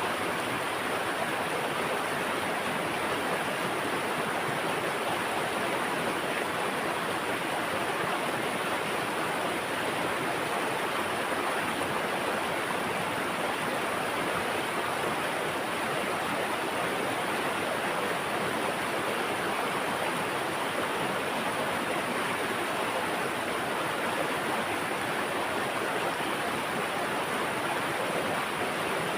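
Steady rushing of flowing water, an even hiss with no breaks or changes.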